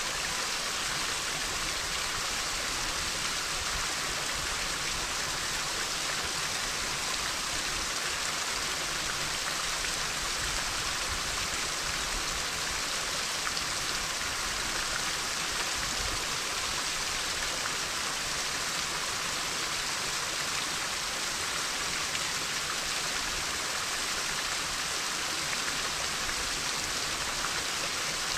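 Steady, even hiss of rushing water, unchanging in level, like rain or a nearby waterfall.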